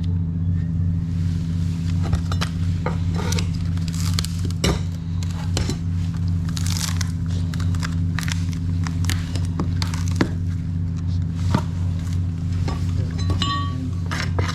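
Irregular cracks, clicks and clinks of hand work on old fiberglass, layers being pried and broken loose, over a steady low hum.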